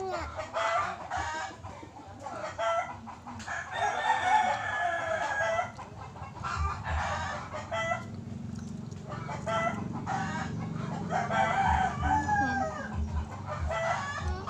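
Chickens clucking, with a rooster crowing: one long crow about four seconds in.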